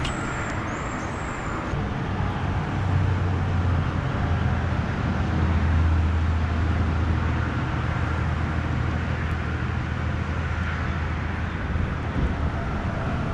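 Road traffic on the bridge overhead: a low rumble that swells for several seconds in the middle and then eases off, over a steady hiss of rain.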